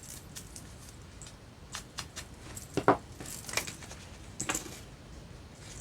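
Scattered light taps, clicks and scuffs of paper and an ink pad being handled as a paper edge is inked, with the sharpest knock about three seconds in.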